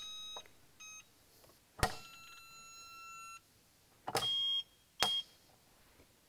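Electronic beeps from a CDI digital torque tester: short and longer steady tones, several times, with three sharp clicks between them as a Quinn torque screwdriver set to 15 in-lb is run against it.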